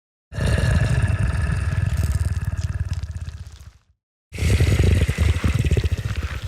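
Two xenomorph creature growls from the Alien films: a fast, guttural rattle with a hiss over it. The first fades out over about three and a half seconds, and the second starts about four seconds in.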